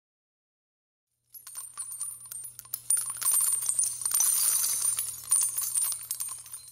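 Intro sound effect of dense, high-pitched jingling and tinkling made of many quick clicks, over a faint steady low hum. It starts about a second in, swells in the middle, and fades just at the end.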